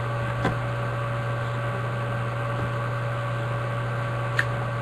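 A steady low electrical hum with faint steady tones above it, with two light clicks from a plastic card box being handled, one about half a second in and one near the end.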